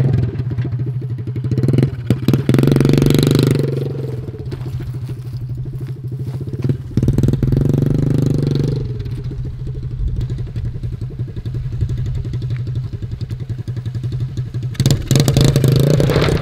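Small petrol engine of a homemade wheeled inflatable boat running steadily and revving up in two surges as it is driven over rough dry ground, then a louder surge with rattling near the end.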